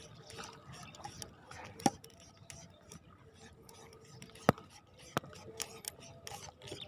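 Underwater crackle of many small clicks and ticks, with two sharp, loud clicks about two seconds and four and a half seconds in.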